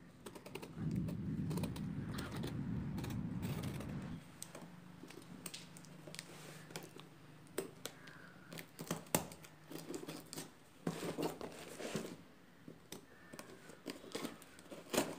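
A cardboard shipping box being opened by hand, a pointed tool scraping and picking at the packing tape. A few seconds of close rubbing and scraping, then scattered taps, scratches and crinkles of tape and cardboard.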